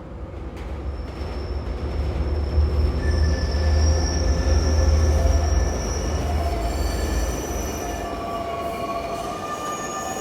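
Subway train running with a deep rumble and high, steady metal wheel squeal. The rumble swells to its loudest around the middle and dies away about three quarters of the way through, while the squeal tones carry on.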